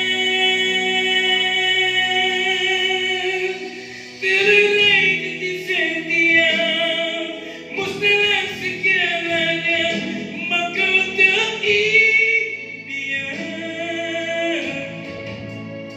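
A man singing a Malay rock ballad live into a microphone over instrumental backing music: a long held note, then from about four seconds in a run of loud sung phrases with vibrato.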